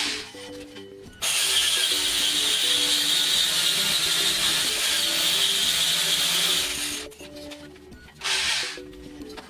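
Diamond core drill grinding into a basement wall in bursts: one brief burst at the start, a long run from about a second in to about seven seconds, and another short burst near the end.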